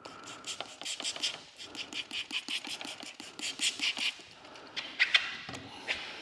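Squeegee worked in quick short strokes over wet paint protection film to press its edge down, about five scraping strokes a second.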